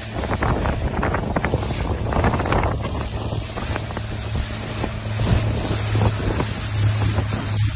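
Speedboat engine running steadily under way, a low drone that grows stronger in the second half. Water rushes past the hull, and wind buffets the microphone.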